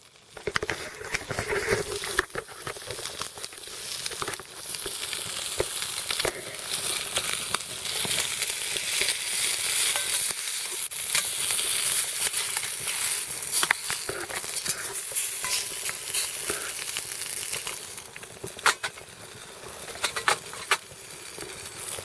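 Spam sizzling as it fries in a small pot over an alcohol stove: a steady high hiss with scattered sharp crackles and pops. The sizzle grows louder after the first few seconds and dies down somewhat near the end.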